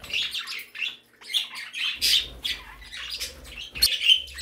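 Mixed flock of small pet parrots and finches chirping and squawking, many short calls overlapping one another.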